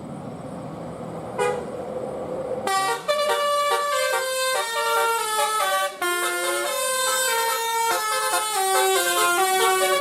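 Bus 'telolet' horn: a multi-tone musical air horn playing a quick tune of stepped notes, beginning nearly three seconds in over vehicle noise, with one rising swoop in the middle.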